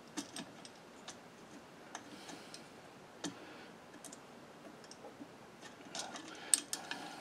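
Faint, irregular small metallic clicks and taps: a bolt and washer knocking against the metal ignition-coil bracket as they are fumbled into place by hand.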